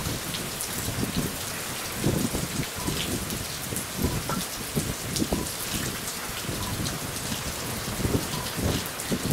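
Steady rain falling, with irregular low thuds of drops or gusts close by.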